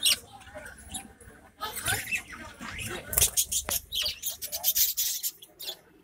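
Budgerigars chattering in an aviary: quick, high chirps and squeaks in irregular bursts, busiest in the second half.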